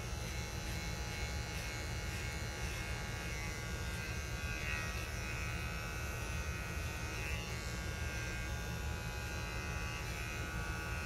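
A small cordless pet hair clipper buzzing steadily as it shaves short belly fur on a small dog.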